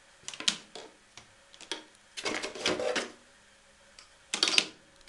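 Hard plastic pump attachments and fittings clicking and clattering as they are handled and lifted out of a cardboard box, in several short bursts with pauses between them, the loudest near the end.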